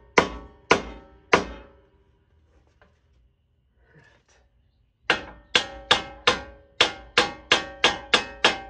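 A hammer striking metal on the front suspension of a Jeep Grand Cherokee WK, driving the upper control arm down into the steering knuckle so its bolt can be started. Each blow rings: three blows, a pause of about four seconds, then a faster run of about ten blows.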